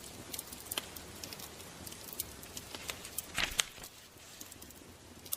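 Irregular crackles and pops over a soft steady hiss, with a louder cluster of crackles about three and a half seconds in.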